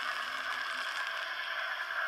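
N scale PRR T-1 duplex model locomotive running around its track: a steady, even running noise from the small motor and wheels on the rails.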